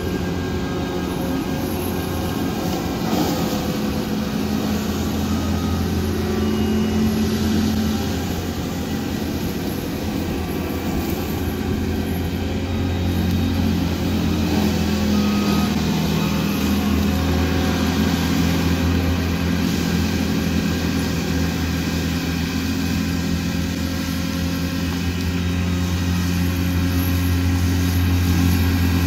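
Cat 299D3 XE compact track loader with a mulcher head, its diesel engine and hydraulics running steadily as it works across the grass, with small shifts in pitch. It grows a little louder near the end as it comes toward the listener.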